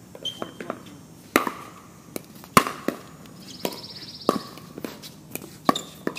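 Pickleball paddles striking a plastic ball in a fast rally: about a dozen sharp pops at uneven intervals, some exchanges coming under half a second apart.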